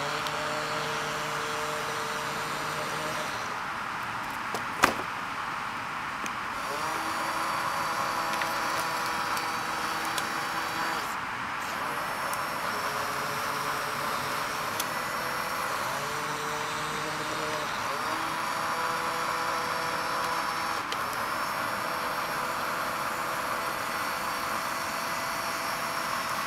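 Small geared motors of a USB foam-missile launcher whirring as the turret pans and tilts, the whine shifting in pitch or stopping every few seconds as it changes direction. One sharp click about five seconds in.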